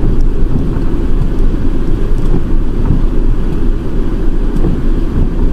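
Ford Transit truck's engine idling with a steady low rumble while waiting in the queue.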